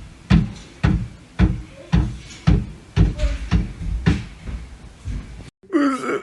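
A series of heavy knocks, about two a second, uneven in strength. They stop suddenly, and near the end comes a short high cry that bends in pitch.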